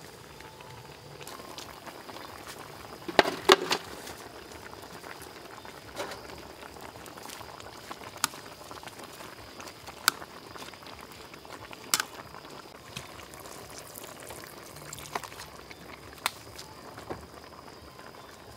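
Sour soup boiling steadily in a large metal pot over a charcoal stove. A brief clatter of knocks comes about three seconds in, and sharp single clicks sound every couple of seconds.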